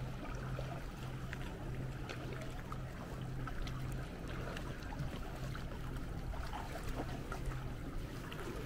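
Canoe paddles dipping and water splashing and dripping around inflatable sea canoes: a steady run of small splashes and trickles over a low hum that comes and goes.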